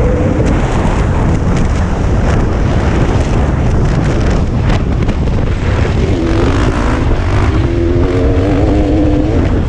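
Dirt bike engine running at speed, its pitch wavering up and down, under heavy wind rumble on the onboard camera's microphone.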